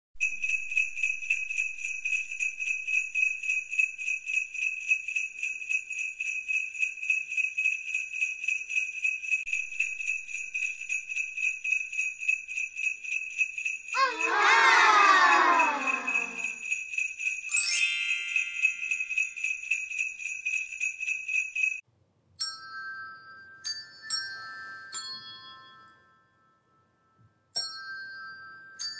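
Sleigh bells jingling in a steady rhythm, about four shakes a second, with a long falling, wavering call partway through. The bells stop about two-thirds of the way in, and a few bright chiming notes like a glockenspiel follow.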